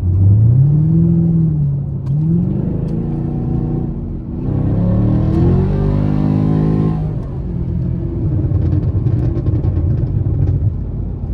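Camaro SS 6.2-litre V8 exhaust, heard from inside the cabin with the back seat folded down. The engine accelerates with its pitch climbing and dropping at each upshift, pulls hard and loud from about four and a half seconds in, then lets off suddenly about seven seconds in to a steady cruising drone. The dual-mode exhaust is in its quieter Tour setting.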